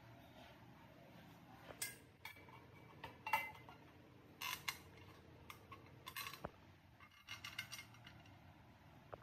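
Light metallic clinks and knocks of an aluminium grinding-chamber housing being handled and fitted onto the electric motor of a mini flour mill. There are several separate taps, with a quick cluster of them near the end.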